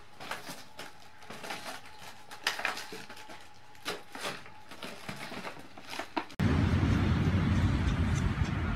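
Faint scattered light taps and crinkles, then about six and a half seconds in a sudden switch to a loud low rumble of wind buffeting the microphone.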